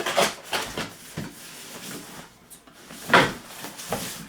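Cardboard toy packaging being handled and worked open by hand: rustling and scraping, with one louder, sharp noise about three seconds in.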